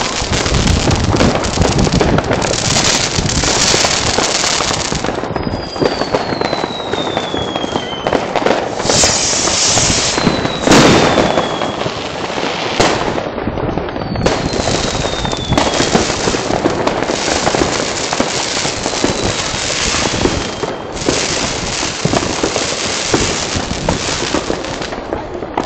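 Many fireworks and firecrackers going off at once: a continuous crackle of bangs, with several whistles that fall in pitch and one bang, about eleven seconds in, louder than the rest.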